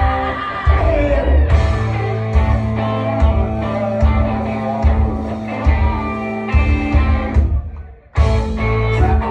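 Live rock band playing electric guitars and drums with a singer. Near the end the whole band cuts out for a split second, then comes back in together.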